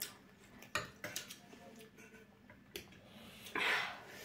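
Metal cutlery clicking and tapping against a serving tray and a small steel bowl while eating: a few sharp, separate clicks, then a brief rushing sound near the end.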